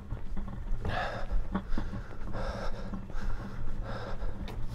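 A man breathing heavily through the mouth, a breath roughly every second, from the effort of walking uphill while carrying a longboard. A low steady rumble runs underneath.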